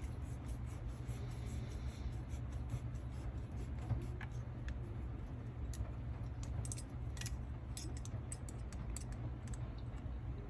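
Light, irregular clicks and ticks of a hex driver and small parts as screws are snugged into an RC truck's plastic caster blocks, over a steady low hum.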